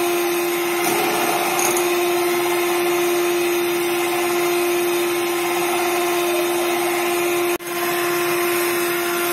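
Electric hand mixer running at a steady speed, its twin beaters whisking thin cake batter in a plastic bowl: a steady motor hum with a whir of beaters in liquid. It breaks off for a moment near the end, then runs on.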